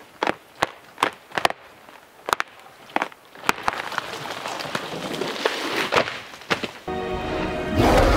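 A dead standing tree being rocked and pushed over by hand: a run of sharp cracks as the rotten trunk splinters, then a swelling rush of creaking and breaking as it gives way. About seven seconds in, loud music cuts in suddenly.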